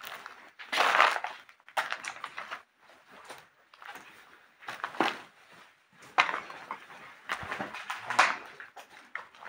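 Footsteps and movement over debris: irregular scuffing and crunching with a few sharp knocks.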